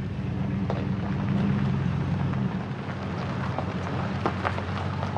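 A vehicle driving on a dirt forest road: a steady low drone of engine and tyres, with scattered small ticks and clicks of gravel and loose stones against the vehicle.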